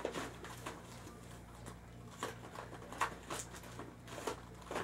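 Scattered light clicks and rustles of plastic toys and packaging being handled and pushed into plastic Easter-basket buckets.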